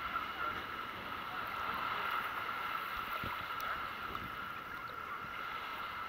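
Small sea waves lapping and sloshing around a camera held at the waterline: a steady watery noise with a few faint ticks of splashing.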